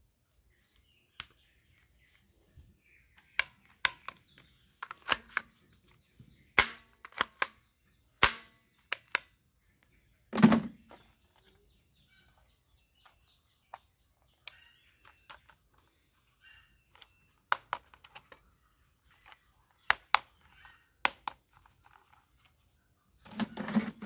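Plastic toy guns being handled and worked: irregular sharp plastic clicks and clacks, with two heavier thuds, one about ten seconds in and one near the end.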